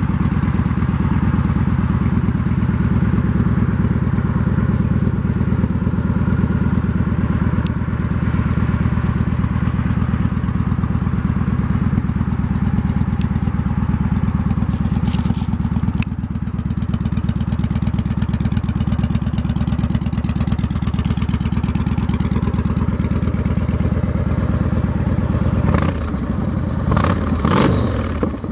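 2007 Yamaha Road Star Warrior's 1670 cc air-cooled V-twin idling steadily through a Cobra aftermarket exhaust. Near the end the throttle is blipped three or four times in quick revs that rise and fall.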